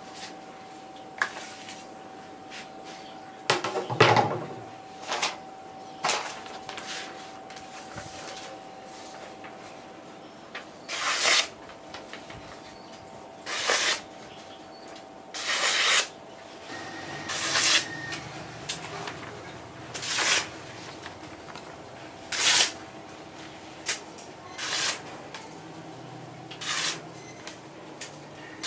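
Steel shamshir blade slicing through a sheet of paper in a sharpness test: a run of short rasping cuts about every two seconds, from about ten seconds in. Before that there is a louder scrape and knock about four seconds in, as the blade is drawn from its scabbard.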